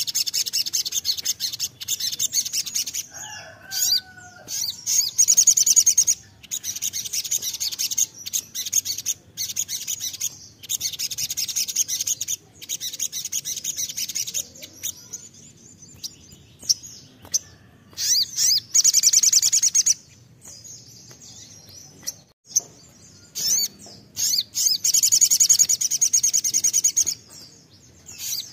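Male olive-backed sunbird (sogon) singing: loud, high, rapid trilling phrases a few seconds long, repeated after short pauses.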